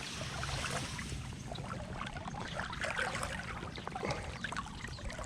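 Creek water sloshing and trickling around a wader's legs as he wades through chest-deep water, with many small irregular splashes.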